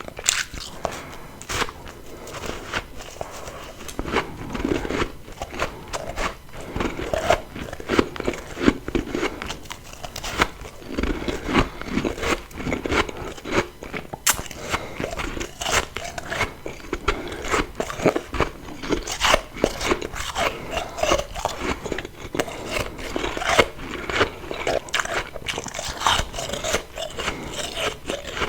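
Close-up biting and chewing of refrozen freezer frost, a continuous run of crisp crunches and crackles.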